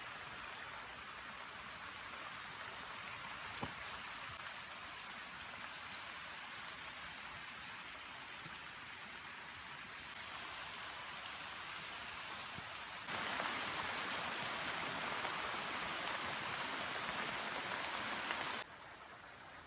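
Rain falling steadily in forest, a continuous hiss. About thirteen seconds in it suddenly becomes louder for around five seconds, then drops back abruptly near the end.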